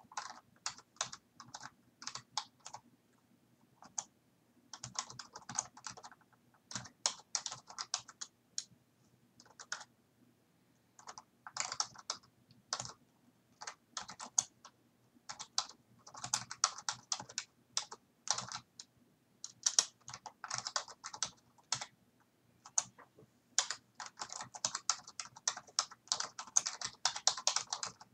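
Typing on a computer keyboard in quick bursts of keystrokes with short pauses between them.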